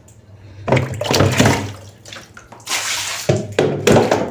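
Water splashing and pouring in several loud bursts, about three, as dishes are washed by hand with water from a bucket. A steady low hum runs underneath.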